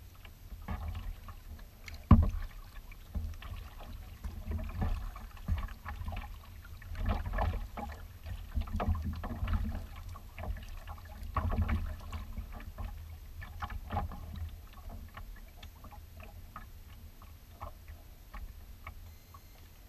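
Choppy bay water lapping and splashing against a kayak's hull, coming and going unevenly over a low rumble, with one sharp knock on the hull about two seconds in.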